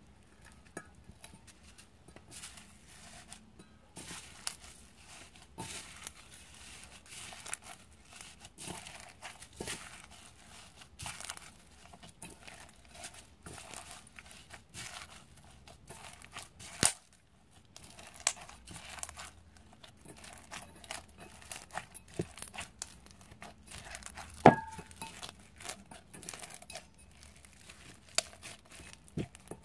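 Slime being kneaded with foam beads worked into it: a steady run of small crunchy crackles, with two sharper, louder pops about halfway and about two thirds of the way through.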